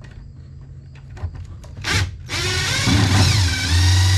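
Cordless drill/driver: a brief spurt of the motor about two seconds in, then it runs for about two seconds with its pitch wavering up and down as the trigger and load change. The screw it is driving only spins in its plastic housing instead of backing out.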